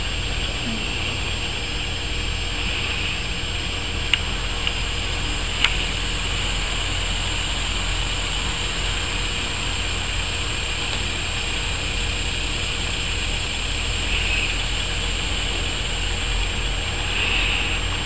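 Steady outdoor background noise: a low rumble under an even high hiss, with two faint clicks about four and five and a half seconds in.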